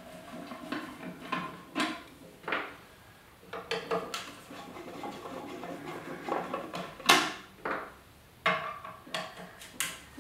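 Small metal parts and a hand tool clicking and clinking against the arm of a Delta 16-inch variable speed scroll saw as it is taken apart: scattered light clicks and knocks, the loudest about seven seconds in and several more near the end.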